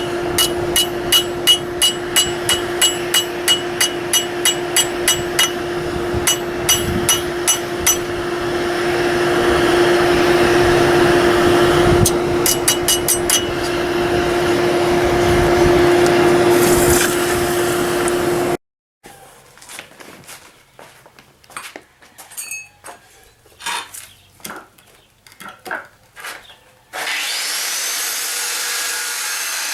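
Hammer blows ringing on an anvil in quick runs of several strikes, over a steady hum, as steel is forged and textured. After an abrupt cut come softer, scattered knocks, then near the end a motor spins up with a rising whine and runs steadily.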